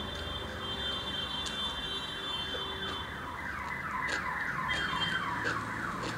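A warbling tone repeating in quick sweeps, several a second, growing louder about halfway through, with scattered soft clicks.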